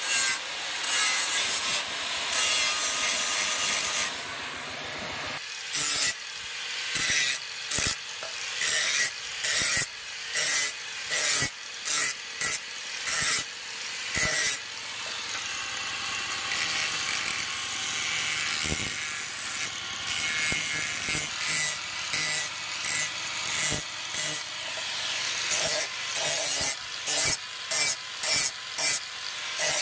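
Angle grinder working a steel knife blade: a continuous grind at first, then a sanding disc pressed on and lifted off the blade in short, repeated passes, about two a second.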